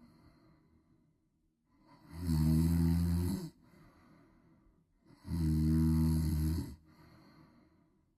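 A person snoring in slow, regular breaths: two long pitched snores about three seconds apart, each lasting about a second and a half and followed by a fainter breath out.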